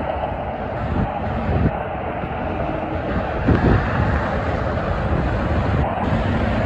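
Steady traffic noise of heavy trucks and cars passing on a multi-lane highway: tyre roar and diesel engines, with a brief louder swell about three and a half seconds in.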